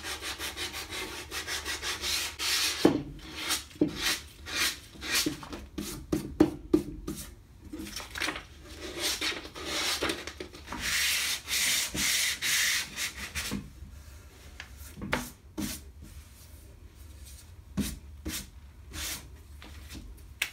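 Sandpaper rubbing down the edge of watercolor paper mounted on a wooden cradled board, in quick repeated hand strokes that smooth off squeezed-out gesso and rough paper edges. The strokes stop about two-thirds of the way in, leaving quieter handling and a few light knocks.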